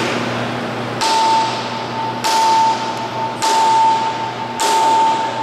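Sledgehammer striking a steel fixture four times, a little over a second apart. Each blow leaves a ringing metallic tone over a steady low hum.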